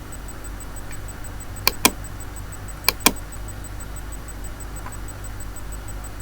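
Steady low hum with two pairs of sharp, double-click-like clicks, the first pair nearly two seconds in and the second about a second later.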